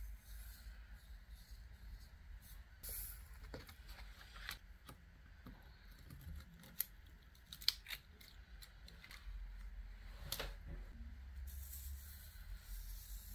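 Faint scraping and small clicks of a wooden spoon and wooden stick on sticker paper as coloured sand is spread and sprinkled for sand painting, with a few sharper ticks in the middle and one near the end.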